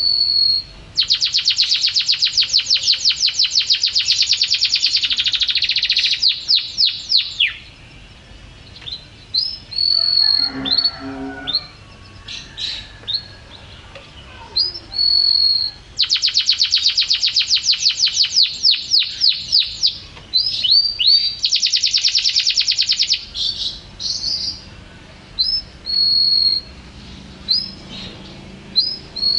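Domestic canary singing: long, fast rolling trills of rapidly repeated high notes, two of them lasting several seconds, alternating with short high whistled notes.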